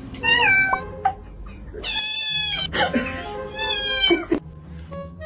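Domestic cat meowing three times, the middle meow long and drawn out.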